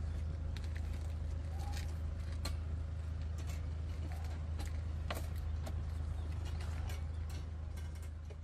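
Steady low hum of a car's cabin, with scattered light metallic clicks and rattles from the wire crate and leash clip being handled.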